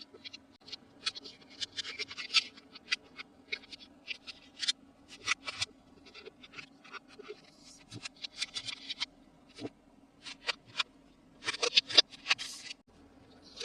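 Toy packaging being handled and opened: irregular sharp clicks and taps with short crinkling, scratchy rustles of plastic and cardboard, busiest about twelve seconds in.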